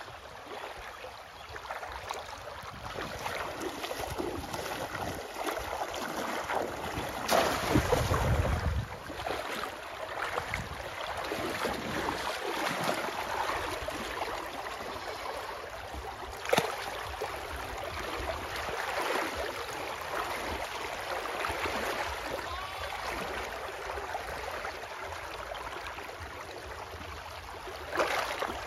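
Shallow river water splashing and sloshing as an arm gropes through the water inside a bamboo polo fish trap, feeling for trapped catfish. There is a louder rush with a low rumble about eight seconds in, and sharp single splashes later on.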